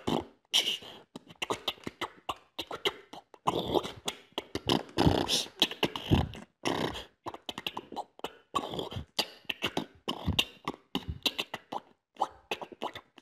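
Beatboxing: a rapid run of mouth-made drum beats and clicks, with deep kick-like thumps among them.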